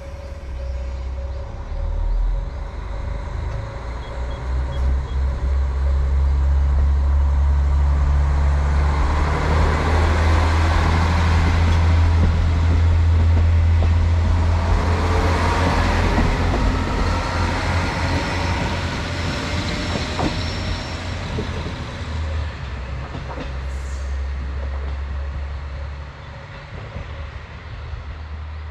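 Diesel railcar moving along the track past the station, its low engine rumble building to a peak about midway and then easing off.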